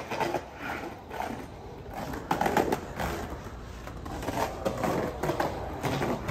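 Skateboard wheels rolling along concrete paving as the rider pushes, with irregular clacks as the wheels cross the joints and brick strips.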